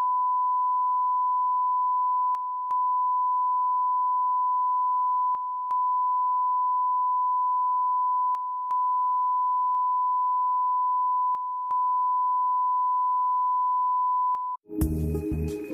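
Steady 1 kHz television line-up test tone accompanying colour bars, dipping briefly in level every three seconds, the pattern of an EBU stereo identification tone with the left channel interrupted. It cuts off near the end and music begins.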